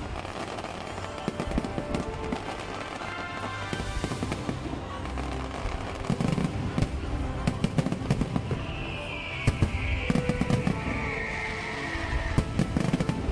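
Large fireworks display: shells bursting and stars crackling in quick succession, with a falling hiss in the last few seconds.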